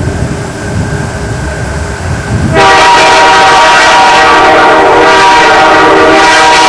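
Diesel freight locomotives rumbling with a horn sounding faintly, then a loud locomotive horn blast starts suddenly about two and a half seconds in and is held steadily.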